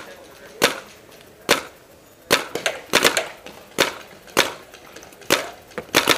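Paintball gunfire: about a dozen sharp cracks at uneven spacing, some in quick pairs.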